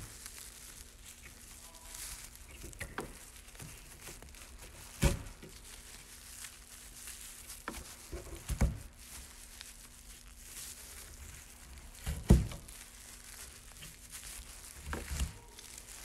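Loops of plastic grocery-bag yarn (plarn) rustling and crinkling as they are pulled through one another by hand. A few dull knocks come through, about five, eight and twelve seconds in; the one near twelve seconds is the loudest.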